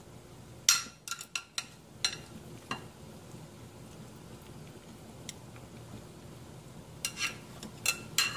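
Metal tongs clinking against the rim and sides of a stainless steel stockpot, several sharp ringing clinks about a second in and another cluster near the end. Behind them runs the low steady bubbling of the boiling soup.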